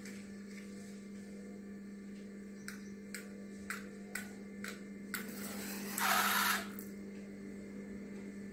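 A wooden match being struck on a matchbox: a few short scratches about half a second apart, then a longer scrape and a louder hissing flare about six seconds in as the match catches. A steady low hum runs underneath.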